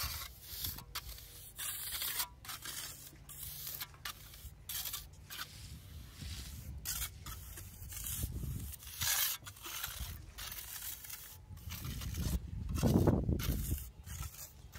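Steel hand trowel scraping across wet cement mortar, finishing the top of a precast concrete wall slab in its mould: repeated short scraping strokes, about one or two a second. A louder low rumble near the end.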